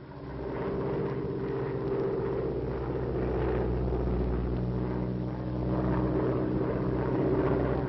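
Twin propeller engines of a PBY Catalina flying boat droning steadily in flight, heard from inside the plane. The drone swells up in the first second, then holds even.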